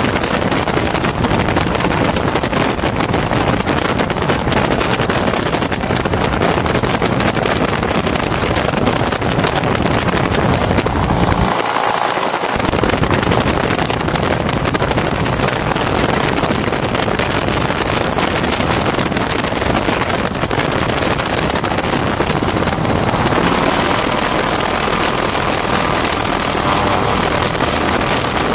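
Hirth F33 single-cylinder two-stroke engine of a MiniMax ultralight running steadily while the plane taxis on grass, heard from the open cockpit with wind on the microphone. The low rumble drops out briefly about twelve seconds in, and a faint steady higher tone joins the engine noise near the end.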